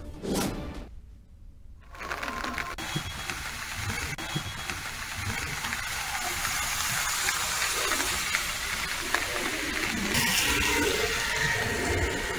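A short swish at the start, then after a moment of quiet a steady rushing noise of water from heavy rain and floodwater begins and carries on evenly.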